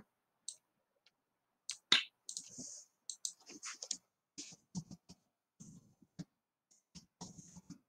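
Faint, scattered clicks and taps of a computer mouse and keyboard, spaced irregularly.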